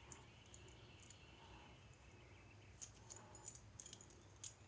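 Near silence, then a few faint clicks and taps in the second half, from small items being handled.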